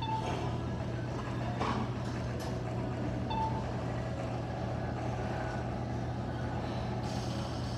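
Steady low hum of a gym hall, with two short electronic beeps, one at the very start and one about three and a half seconds in, and a light knock near two seconds.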